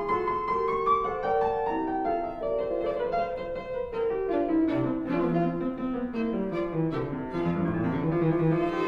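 Instrumental background music with piano and bowed strings, a slow melody of held notes.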